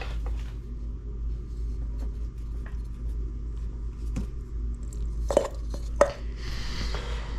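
Metal parts and tools being handled on a dirt bike during teardown: a few sharp clicks and knocks, two of them louder, then a short scraping rustle near the end, over a steady low hum.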